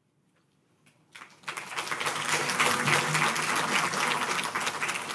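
Audience applauding: a few scattered claps at first, then full applause setting in about a second and a half in and holding steady.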